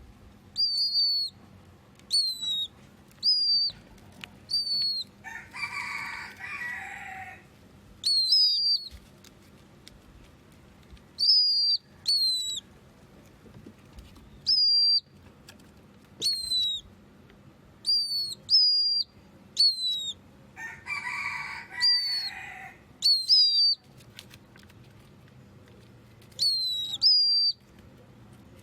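A pet bird, species not identified, repeatedly giving short, clear, high whistled notes, singly or in quick pairs, each dropping slightly in pitch at its end. Twice, about six seconds in and again around twenty-one seconds, comes a longer, rougher and lower-pitched sound.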